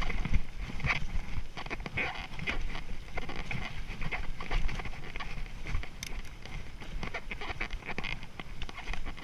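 Mountain bike descending a rough singletrack trail, rattling and clattering: a rapid, irregular run of knocks and clicks from the bike and its tyres over bumps and roots.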